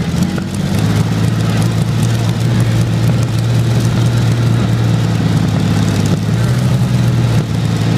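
Rolls-Royce Meteor Mk IVB V12 tank engine running on a static display stand. Its revs drop about a second in, then it runs on at a steady speed.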